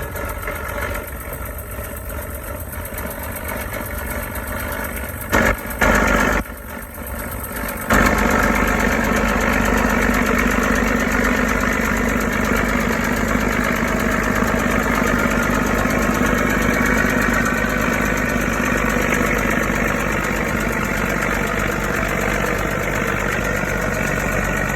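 Caterpillar D9 bulldozer's diesel engine running steadily. About eight seconds in it jumps louder and fuller, with two short loud patches shortly before.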